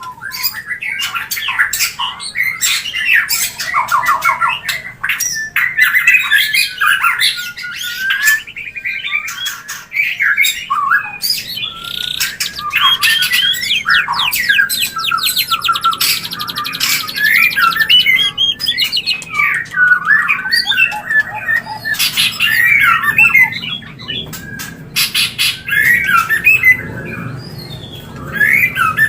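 White-rumped shama (murai batu) in breeding condition singing a continuous, fast-changing song of whistles and harsh notes, broken by sharp clicks, with a rapid trill about halfway through.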